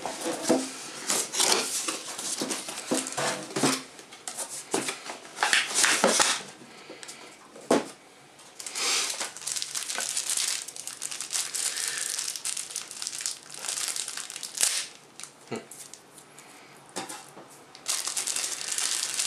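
Cardboard box packaging being handled and opened, then plastic bags crinkling and rustling as accessories are unwrapped, in irregular bursts with a few sharp knocks around 8 and 15 seconds in.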